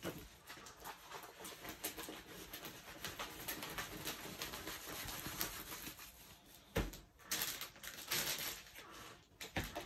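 Plastic packaging of diamond painting drills rustling and crinkling as it is handled, with small clicks and taps and a louder stretch of rustling about seven seconds in.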